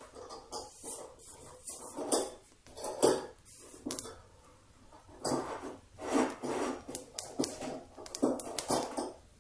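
Rustling and handling noises, in irregular bursts about a second apart, with a few light metallic clinks.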